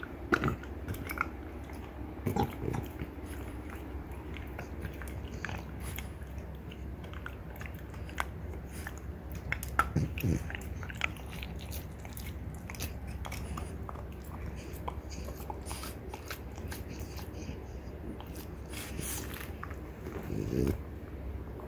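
French bulldog gnawing a deer antler: irregular scraping and clicking of teeth grinding on the hard antler, with a few louder crunching bites.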